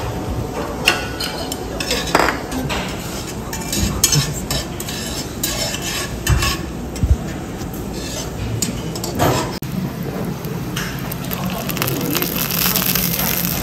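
Tableware clinking and knocking, with dishes and cutlery set down and moved several times. Near the end, oil with garlic cloves starts to sizzle in an enamelled cast-iron pan heating on an induction hob.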